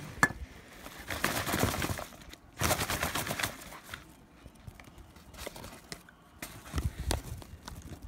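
Paper microwave popcorn bag crinkling and rustling as it is held open and handled, the popped corn shifting inside. A sharp click just at the start, then three noisy bursts: about a second in, around three seconds in, and near the end.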